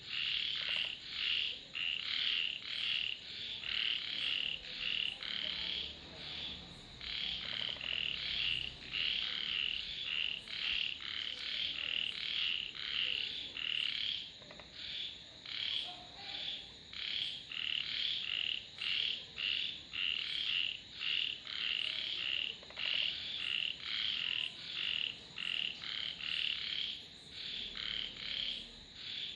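Frogs calling in a steady series of short, high-pitched calls, about two a second.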